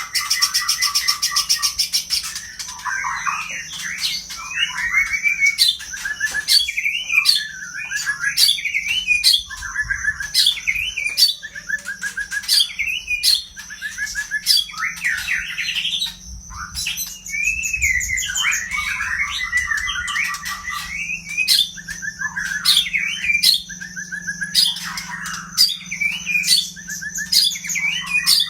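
White-rumped shama singing a long, varied song of rapid chirps, trills, whistled phrases and sharp clicks, packed with mimicry of a female kolibri manggar sunbird's calls. A steady high-pitched tone and a low hum run underneath.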